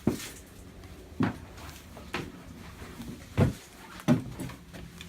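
A series of short knocks and clunks, about five of them roughly a second apart, the loudest a little past the middle.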